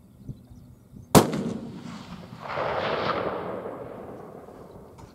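A single 6.5-284 rifle shot about a second in. Its report rumbles on, swells again and dies away over about four seconds.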